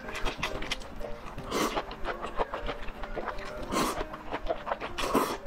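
Close-up slurping and chewing of noodles in chili-oil broth: a run of small wet smacks and clicks, broken by three longer slurps about one and a half, four and five seconds in.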